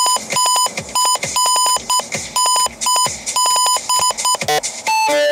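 Radar-detector alert from a SHO-ME Combo dashcam-radar-detector unit: rapid, insistent electronic beeping in long and short pulses, which signals a detected speed-enforcement radar or camera. Near the end the beeping gives way to a short run of different tones.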